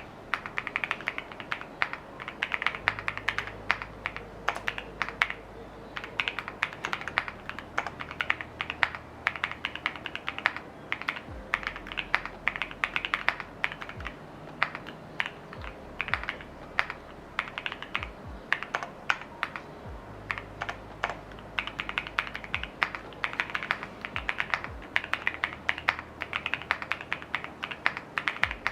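Steady typing on a TKD Cycle7 custom mechanical keyboard with lubed Vertex V1 switches, an FR4 plate, case and plate foam, and PBTFans VIOR PBT keycaps: a continuous run of quick key clacks.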